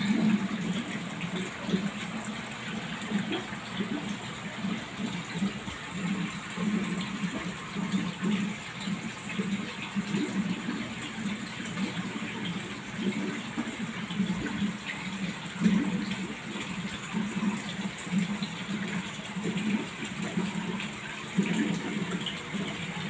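Water gushing steadily in a large fish tank, with an uneven low gurgling that pulses on and off.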